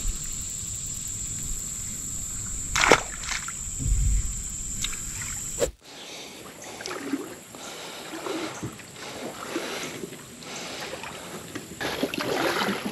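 Kayak on the water: a few sharp knocks against the hull with wind on the microphone under a steady high whine, then after an abrupt cut about six seconds in, scattered small knocks and water noise that grow busier near the end.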